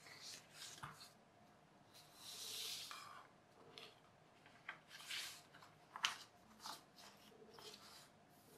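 Faint rustling and scraping as paper strips and rulers are slid and set down on a cutting mat, with a few light taps; a longer slide comes about two seconds in and the sharpest tap about six seconds in.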